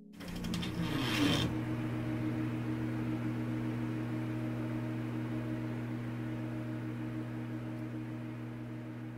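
A steady low hum of several tones under a hiss, opening with a brief rasping burst about a second in.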